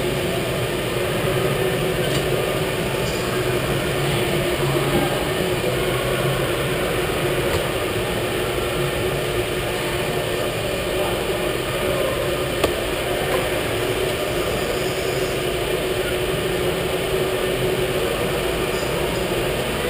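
Indoor electric go-kart running, heard from on board: a steady motor hum with a constant whine over rolling noise. One brief sharp click about two-thirds of the way through.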